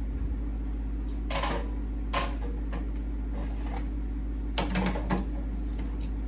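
Light clicks and clinks of espresso gear being handled and set down: a small scale and a shot glass going onto a metal drip tray. About five seconds in comes a quick cluster of clicks. A steady low hum runs underneath.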